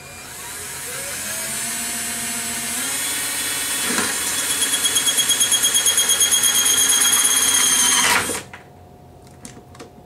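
Cordless drill with a spade bit boring through the side of a plastic 5-gallon bucket. The motor winds up, then runs louder with a rapid pulsing chatter, about eight a second, as the bit cuts through the plastic, and stops abruptly about eight seconds in.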